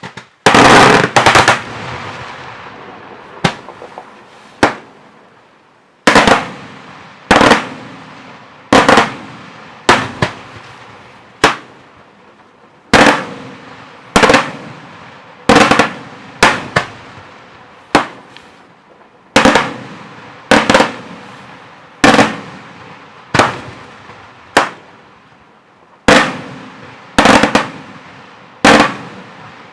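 Daytime fireworks: loud bangs from bursting shells, a quick cluster near the start and then about one bang every second and a half, each trailing off in a rolling echo.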